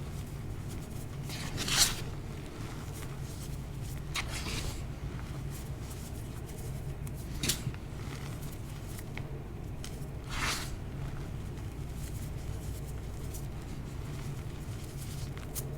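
Gym chalk crunching as it is pressed and crumbled, in four separate short crunches a few seconds apart, the first the loudest, over a steady low hum.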